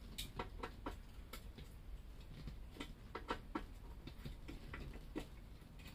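Light, irregular clicks and taps of hand tools working a stubborn, threadlocker-coated bolt on a motorcycle. The clicks come at uneven intervals, a few each second.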